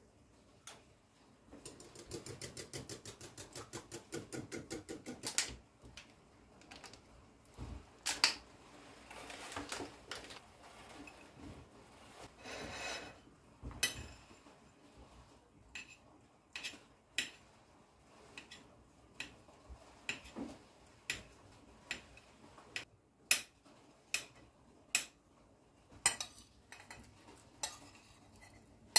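A metal spoon and a knife clinking and scraping on a ceramic bowl and plate. A fast, even run of clinks, about six a second, starts about two seconds in and lasts a few seconds. Scattered sharp taps and scrapes follow as the knife breaks up soft brined cheese on the plate.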